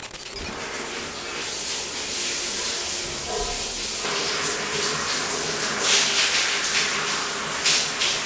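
Shower water spraying onto a tiled shower floor: a steady hiss of running water that grows a little brighter about four seconds in.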